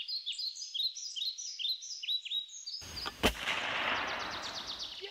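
Bird chirps repeating about three times a second, then, about three seconds in, a single shot with a long rushing tail that fades while the chirping goes on.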